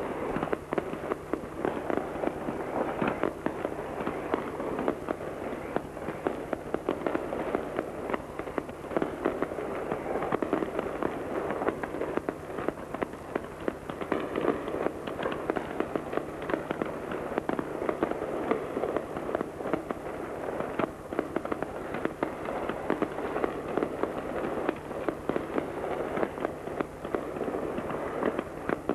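Ground-level fireworks fountain shooting up sparks, with a dense, steady crackle of rapid small pops.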